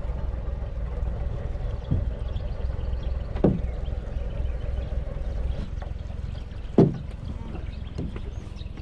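Crab pot rope being hauled in hand over hand over the bow of an aluminium boat, with a few knocks, the loudest about three and a half and seven seconds in, over a steady low rumble.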